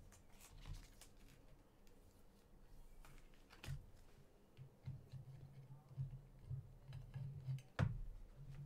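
Faint clicks and soft handling noises of trading cards being flipped through by hand, with a few sharper clicks scattered through and the loudest near the end.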